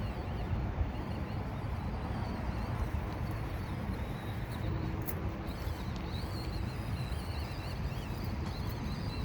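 Axial SCX24 mini RC crawler's small electric motor and gears whining faintly as it climbs, the pitch wavering up and down with the throttle, over a steady low rumble.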